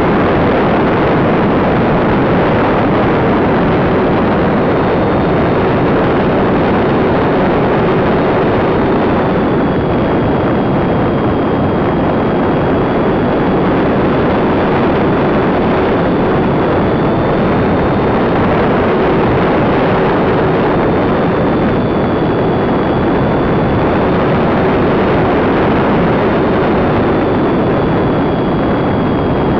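Steady, heavy wind rush on a camera mounted on a flying model plane's tail fin, with a faint high motor whine that wavers up and down in pitch.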